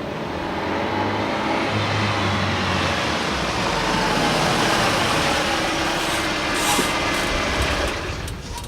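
Car accelerating: engine and road noise build steadily to a peak around the middle, then ease off in the last second as the car slows.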